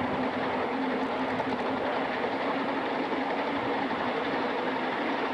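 Live-steam Atlantic-type locomotive under steam, giving a steady hiss with a low hum and no distinct beat.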